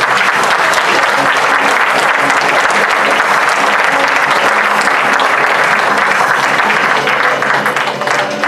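Theatre audience applauding, a dense clapping that thins out near the end, with music playing faintly underneath.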